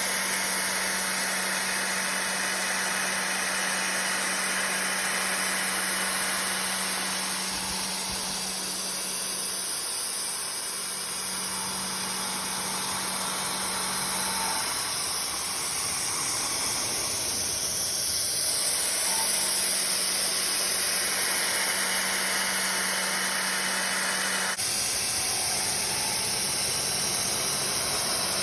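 ProtoTrak CNC mill machining a block of D2 tool steel: a steady hiss with a low hum from the running machine that drops out and comes back a few times.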